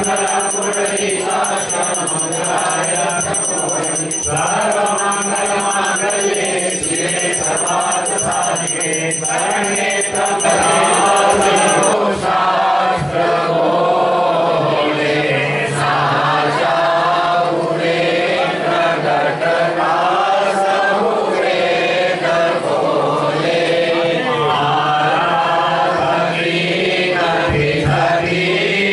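Congregation singing a Hindu devotional chant together, a bhajan-style group chant over a steady low drone.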